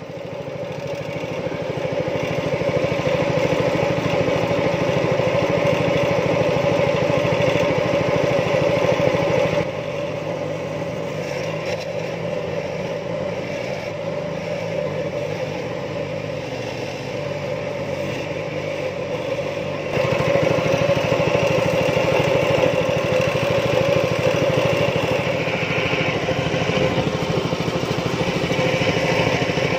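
Small boat's engine running steadily under way, picking up over the first few seconds. The throttle eases back about ten seconds in and opens up again about twenty seconds in.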